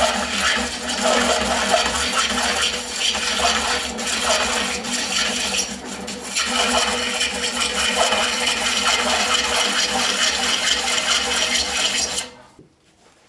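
Gouge cutting into a large spinning wooden bowl blank on a Oneway 2436 lathe: a steady cutting noise over the lathe's running hum. It cuts off abruptly near the end.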